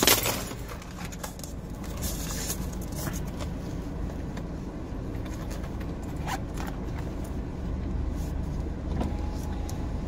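Car running, heard from inside the cabin as a steady low hum. Brief rustles and scrapes of things being handled come at the start, about two seconds in and again around six seconds in.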